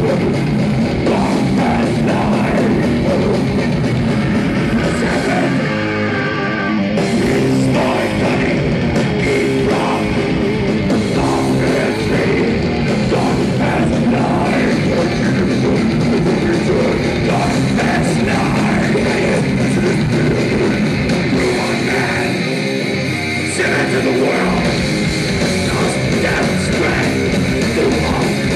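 Live death metal band playing loud, with distorted electric guitars and drums. The lowest notes drop away briefly twice, about six seconds in and again around twenty-three seconds.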